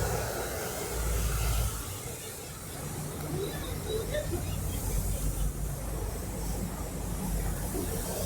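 Street traffic: vehicles passing with a low, uneven rumble and a steady hiss, which eases for a moment about two seconds in.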